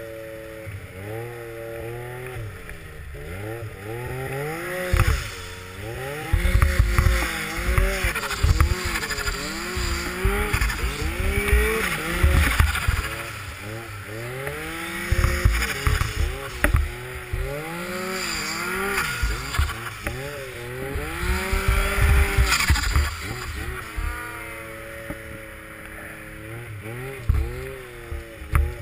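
Snowmobile engine repeatedly revving up and backing off as the throttle is worked through deep powder snow. Heavy low buffeting on the microphone comes and goes through the middle stretch.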